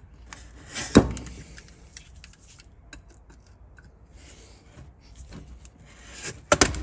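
Snap-off utility knife blade scraping and cutting along the plastic lid seam of a 12 V lithium motorcycle battery case, in short scratchy strokes. A sharp crack comes about a second in, and a cluster of sharp clicks comes near the end.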